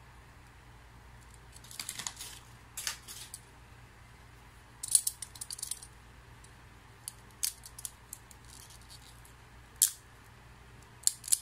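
Small hard Beyblade parts clicking and clinking against each other as they are handled, in short scattered clusters with pauses between, the loudest clink about five seconds in.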